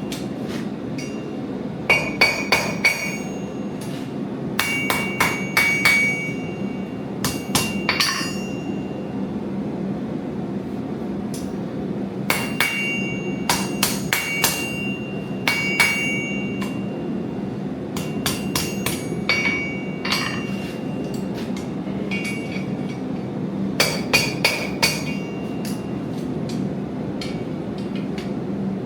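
Hammer blows on metal at an anvil, coming in quick runs of several strikes with pauses between runs, each strike ringing with a clear metallic tone. A steady low rumble runs underneath.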